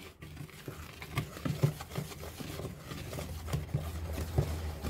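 A small wire whisk stirring dry flour mix in a plastic mixing bowl, with irregular soft scrapes and light taps of the wires against the bowl. A low hum comes in about three seconds in.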